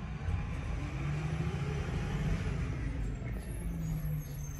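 Rear-loader garbage truck's diesel engine running as the truck moves off along the street. The engine rumble gets louder shortly after the start and rises in pitch as the truck accelerates.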